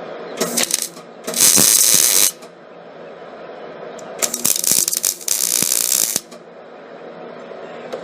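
MIG welding arc crackling in four short bursts, the first brief and the rest about a second each: tack welds being laid.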